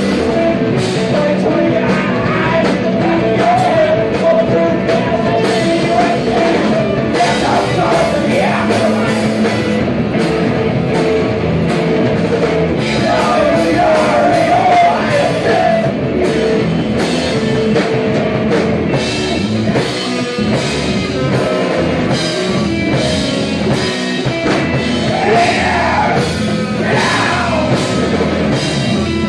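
A live shoegaze rock band plays electric guitars and drum kit, with singing in places. The sound is loud and dense throughout.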